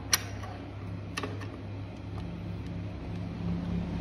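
An adjustable steel wrench clicks sharply twice against the steering-head nut of an electric scooter, about a second apart, as the nut is tightened to take the play out of the steering. A steady low hum runs underneath and grows louder in the second half.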